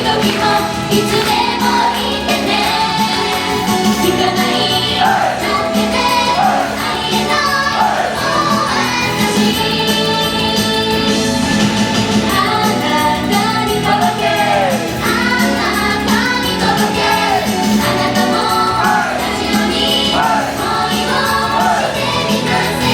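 A song with several voices singing over a full instrumental backing.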